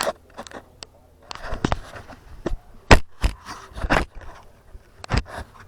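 A string of irregular clicks, taps and knocks, with the sharpest knock about three seconds in: small tools and parts being handled and set down on a hard work surface.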